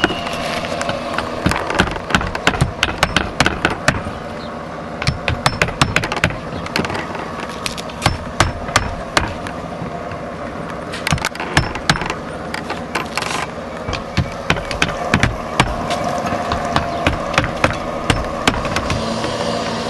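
Hammer driving nails through the metal flange of a roof intake vent into the deck, in bursts of quick strikes with short pauses between.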